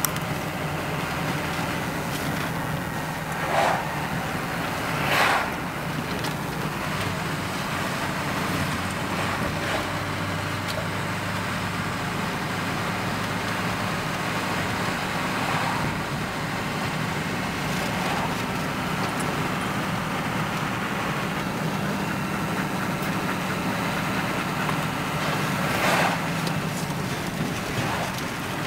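Steady engine hum and road noise of a vehicle driving, heard from inside the cabin, with a few brief louder swells.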